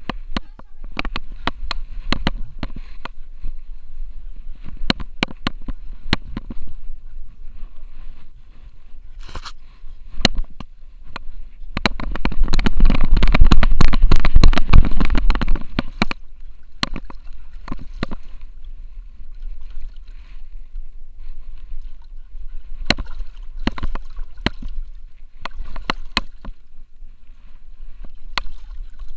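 Handling noise from a Xiaomi Yi action camera strapped to a French bulldog's harness as the dog moves about: frequent sharp knocks and clicks over a muffled rubbing rumble, which swells loudest for a few seconds around the middle.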